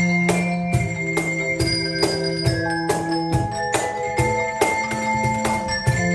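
Handbell ensemble of music bells and tone chimes playing a melody over held, ringing chords, with percussion hits keeping a steady beat of about two a second.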